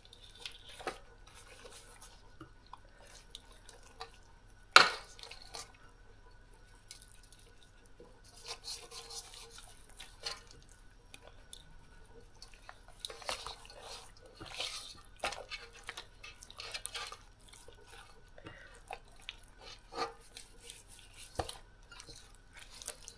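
Hands working spice mix into whole fish in a metal bowl: soft wet squishing and scattered small clicks, with one sharp knock about five seconds in.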